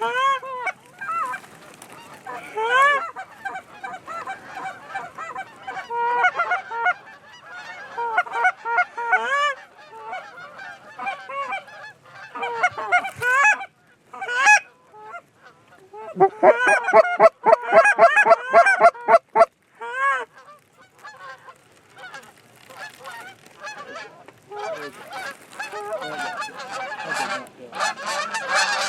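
Canada goose honks and clucks, many overlapping calls in quick succession, with a dense fast run of clucks about two-thirds of the way through.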